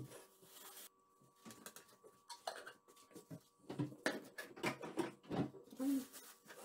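Light clinks and knocks of kitchenware being handled, coming thicker and louder in the second half, over a faint steady hum.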